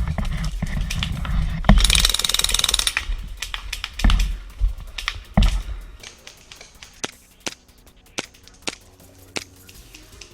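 Airsoft minigun firing one buzzing burst of a little over a second, about two seconds in, over heavy rumbling and knocks of movement close to the microphone. After that come scattered sharp clicks.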